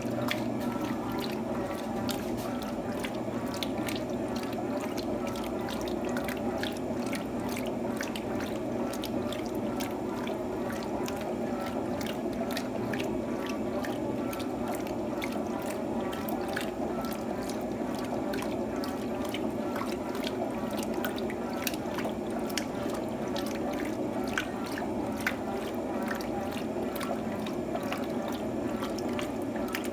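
Water splashing and dripping in the tub of an Electrolux TOP8A top-load washing machine during a wash: a steady watery rush with many small drops and splashes throughout.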